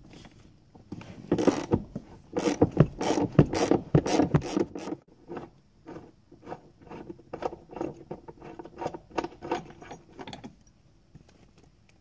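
Ratchet clicking as the seat belt's lower anchor bolt is backed out, dense for the first few seconds, then sparser metal clicks and rattles as the bolt and belt anchor are handled, stopping about ten seconds in.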